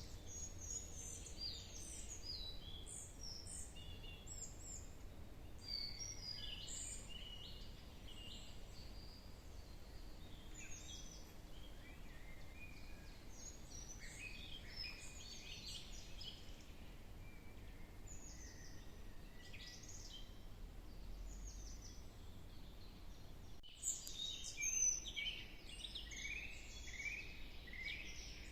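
Several songbirds chirping and singing in a forest, many short calls and trills overlapping, busiest near the end. A low steady rumble runs underneath.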